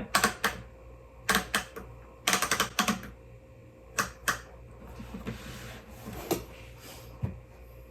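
Manual typewriter being handled while a sheet of paper is fed in and lined up: irregular mechanical clicks and clacks in small clusters, with a short papery rustle about five seconds in.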